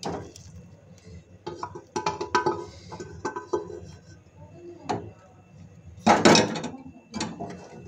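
Metal spoon scraping and knocking against an aluminium pressure cooker as boiled kidney beans are tipped into a frying pan of masala, a string of clinks and knocks, with a louder clatter about six seconds in.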